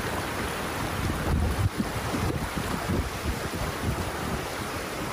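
Shallow stream rushing steadily over rocks, with gusts of wind buffeting the microphone.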